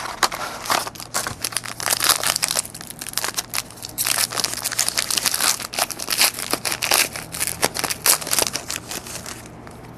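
Crinkling and crackling of a trading-card pack wrapper being handled and opened, dense irregular crackles that die down near the end.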